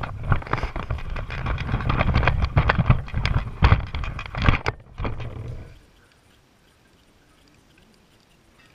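LEGO monster truck driving across a wooden laminate floor, heard close from the camera mounted on it: a dense clattering rattle of plastic parts over a low rumble, which stops suddenly about six seconds in.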